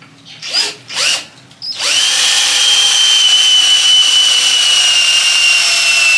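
Cordless drill boring a hole into a wooden tomahawk handle. Two short trigger blips come first, each with the motor spinning up. From about two seconds in there is a steady high motor whine as the bit cuts, its pitch sinking slightly.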